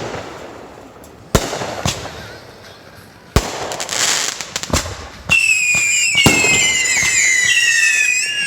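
Consumer fireworks going off: four sharp bangs a second or so apart, then from about two-thirds of the way through several high whistles at once, slowly falling in pitch, from whistling fireworks, with one more bang among them.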